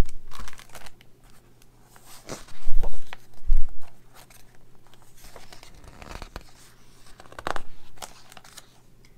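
Pages of a hardcover picture book being turned by hand, paper and cover crinkling, with a few thumps as the pages are laid down: once at the start, twice about three seconds in, and once near the end.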